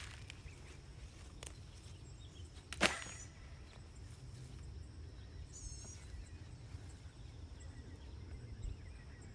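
Quiet outdoor background with a steady low rumble, one sharp knock about three seconds in, and a brief bird chirp just before six seconds.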